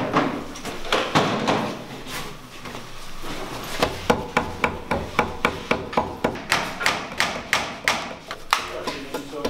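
Mallet striking a chisel into a timber: a few scattered knocks, then from about four seconds in a steady run of sharp taps at about three a second.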